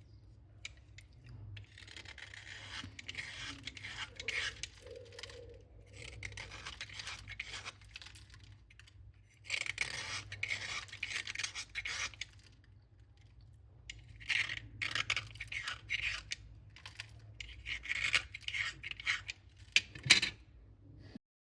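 Slate pencil crunched and ground close to the microphone: gritty scraping and crackling in about five stretches of two to three seconds each, with sharp clicks between them.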